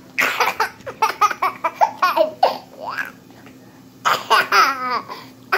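Baby laughing: two runs of quick, bubbling giggles with a short pause about three seconds in.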